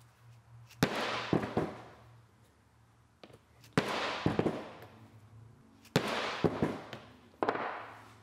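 A mallet striking a metal leather punch down into a leather sheath on a wooden board, punching the stitching-hole marks along the sides. About ten sharp strikes come in groups of two or three, each with a short ring-out.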